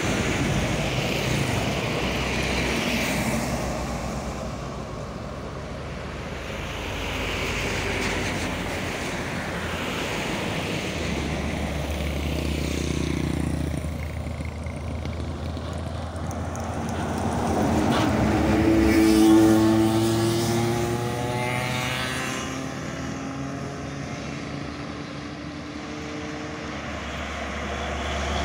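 Heavy diesel trucks passing close by in a stream of traffic: engine and tyre noise swells and fades as each one goes by. The loudest pass comes about two-thirds of the way through, with the engine's pitch shifting as it passes.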